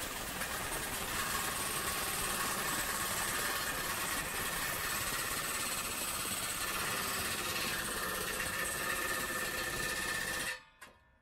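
Impact wrench running in one continuous rapid hammering burst for about ten seconds, tightening the nut on a rusted exhaust band clamp, then stopping suddenly near the end.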